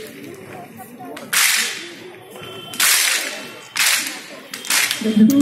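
A large group of schoolgirls clapping in unison: four sharp claps, roughly a second apart, each fading briefly. Voices start up near the end.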